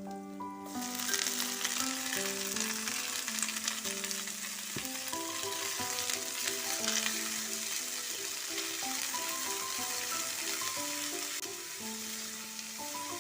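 Food sizzling as it fries in hot oil in a pan, a steady crackling hiss that sets in about a second in, with background music playing underneath.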